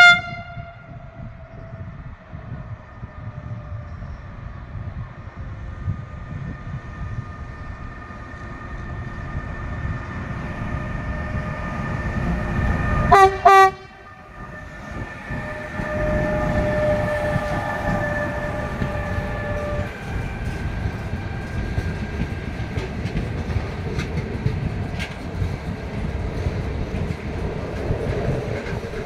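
Renfe class 253 electric freight locomotive approaching with its horn sounding once at the start, the rumble building as it nears, then two short horn blasts about 13 seconds in as it passes. After that come the steady rumble and clatter of car-carrier wagons rolling by, with a steady whine for a few seconds just after the locomotive.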